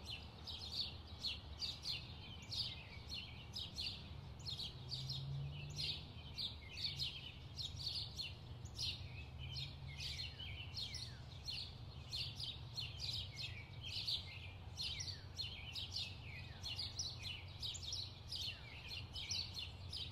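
Birds chirping rapidly and continuously, several chirps a second, some of them falling in pitch, over a low steady rumble.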